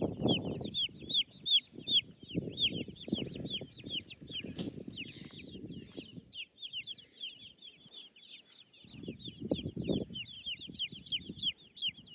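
Baby chicks and turkey poults peeping continuously: a dense run of quick, high, downward-sliding chirps, several a second. Bursts of low rustling noise come and go underneath through the first half and again about three quarters of the way through.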